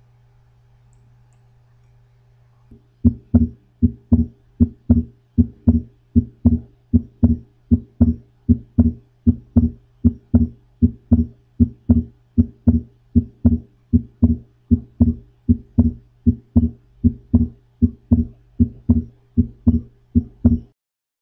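Recorded heart sounds: a regular train of dull thuds, a little over two a second, starting about three seconds in and stopping shortly before the end, over a steady low hum.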